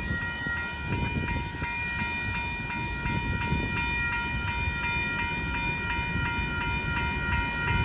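Railroad crossing bell ringing in a steady, even pulse while the crossing signals are active, over the low rumble of a freight train's hopper cars rolling away.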